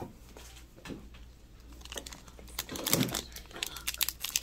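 Foil Pokémon booster-pack wrapper being handled and torn open, crinkling in quick crackles that pick up about halfway through.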